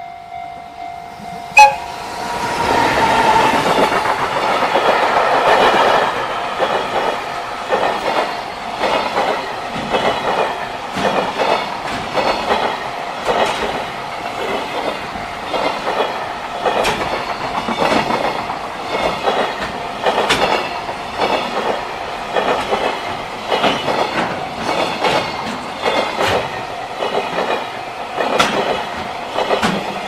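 JR Freight EF210 electric locomotive passing close by with a long train of Koki container flatcars. A very short whistle blast comes about two seconds in, then the locomotive goes by. After that comes a long run of clickety-clack as the wagons' wheels pass over the rail joints, over a steadily ringing level-crossing bell.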